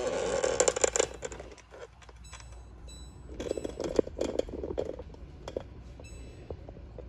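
Glass pot lid rattling against the metal rim of a steaming soup pot, in rapid clattering ticks. It comes in two bursts, the first at the start and the second about three and a half seconds in.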